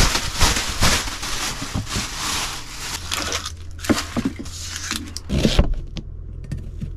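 Dry onion skin crinkling and crackling as a red onion is peeled by hand. After that, a chef's knife slices the onion on a plastic chopping board, with a few light knocks of the blade on the board.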